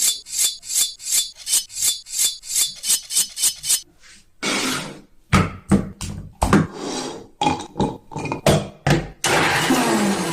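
Repeated hard knocks with a high metallic ring, about four a second for nearly four seconds, then a run of irregular knocks. Near the end a steady hiss takes over and cuts off suddenly.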